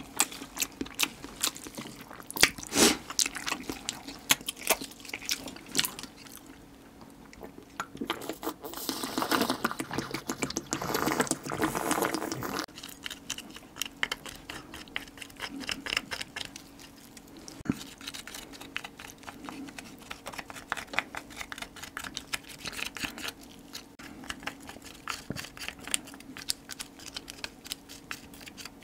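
Close-miked chewing and crunching of soy-marinated stone crab and rice, many small wet clicks, with a louder, denser stretch of chewing between about nine and twelve seconds in.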